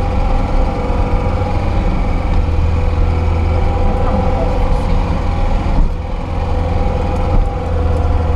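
Lada Niva 4x4 engine running with a steady low drone and an even tone, dipping briefly twice near the end.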